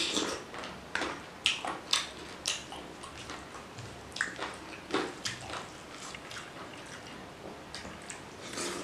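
Wet chewing and lip-smacking of rice and mutton curry eaten by hand, with squelching as fingers mix the rice into the curry. A string of irregular sharp smacks, thickest in the first half.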